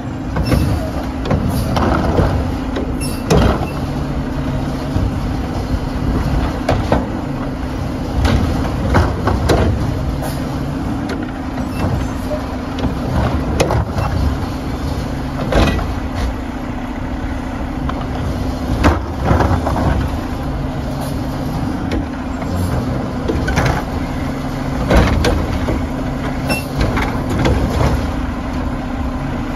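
Mack LR garbage truck's engine running steadily, with many sharp clanks and knocks through it every couple of seconds.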